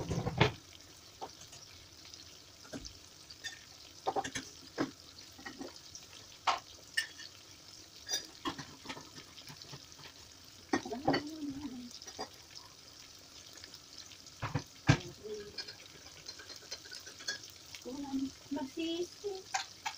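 Chicken wings shallow-frying in hot oil in a pan: a steady sizzle broken by many irregular sharp pops and crackles of spattering oil.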